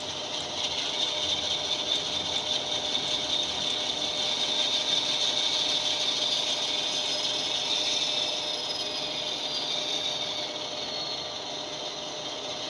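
Diesel engine sound from a LokSound V5 decoder, played through the small speaker inside a Mehano Blue Tiger model locomotive, running steadily; quite an English-sounding diesel.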